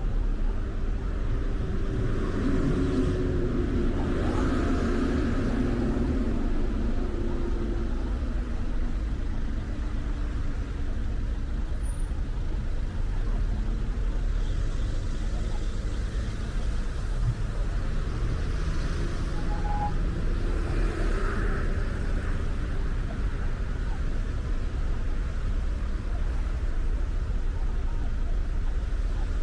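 Steady road noise of a car driving through city traffic: a continuous low rumble of engine and tyres, with louder swells about three to seven seconds in and again around twenty seconds in.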